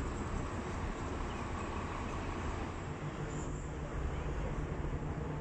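Steady low rumble and hiss of open-air background noise, with a low hum that grows stronger about three seconds in.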